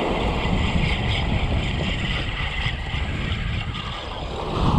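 Strong wind buffeting the microphone in a steady low rumble, with waves washing onto the beach.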